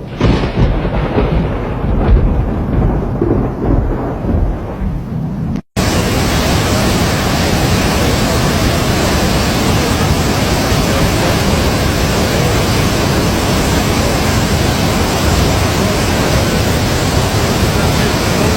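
Heavy storm: for the first few seconds a low, uneven rumble that swells and fades, then, after a sudden cut, a steady, even rush of heavy rain or running floodwater.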